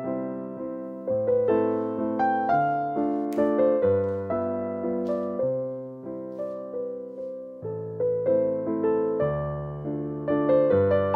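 Background music: gentle solo piano, each note struck and fading over held low notes.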